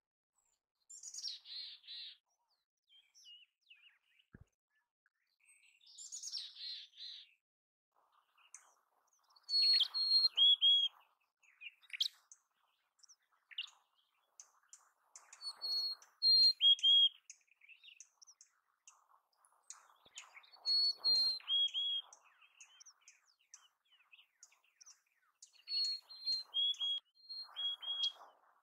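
Mountain chickadee calling and singing. Two rough, falling calls, each ending in a quick run of repeated notes, are followed by four clear whistled songs about every five seconds. Each song holds high notes and then steps down to lower ones.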